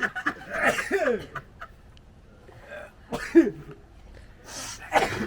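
People coughing and clearing their throats in several short bursts, the loudest about three seconds in, after sniffing snuff powder to try to make themselves sneeze.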